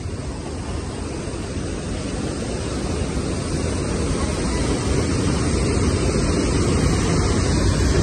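Steady rushing roar of a waterfall and mountain stream, growing gradually louder, with a low rumble of wind on the microphone.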